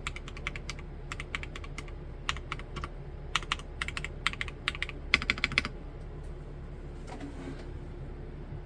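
Clacky typing on an Omnitype BAUER LITE mechanical keyboard in a plastic housing with Gateron Snow Rabbit switches: quick runs of keystrokes that stop about two-thirds of the way through.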